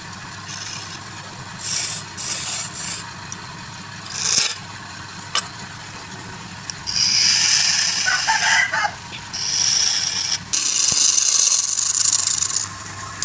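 Wood being cut on a wood lathe: repeated bursts of scraping hiss as the turning tool bites into the spinning wood, over a steady low motor hum. A short pitched call cuts in about eight seconds in.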